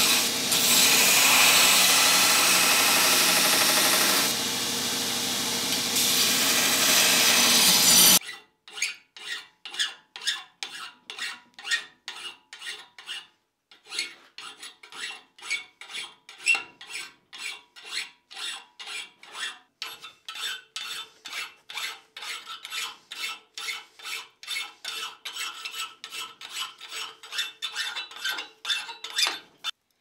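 Bench belt grinder grinding a forged iron cross, a steady loud grind that cuts off about 8 seconds in. Then a hand file rasps back and forth in the inside corners of the cross to clean out cold shuts, about two strokes a second, with a short pause about halfway.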